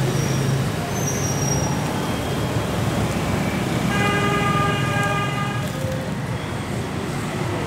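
Street traffic of passing motorbikes and cars, a steady rumble and hiss of engines and tyres. A horn sounds about four seconds in and holds for about a second and a half.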